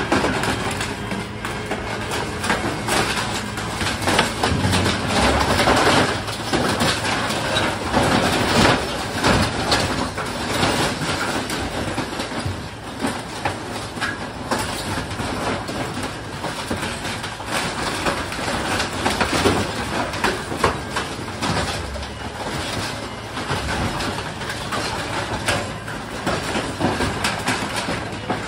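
CrushR truck-mounted dumpster compactor's heavy roller drum crushing wood and scrap debris in a steel roll-off dumpster: a loud, continuous run of cracking, crunching and clattering.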